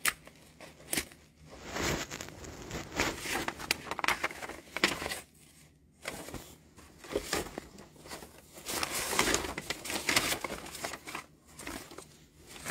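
Irregular rustling and crinkling noises with a few short quiet gaps: the phone being handled and rubbed close to its microphone.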